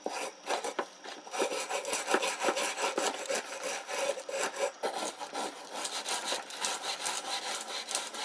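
Wire brush scrubbing an old iron horseshoe in a shallow tub of water, in quick back-and-forth scraping strokes, several a second. The brushing clears the dark residue left by the rust-remover soak.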